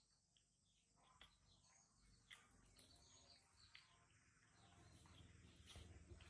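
Near silence: faint room tone with a few soft scattered ticks.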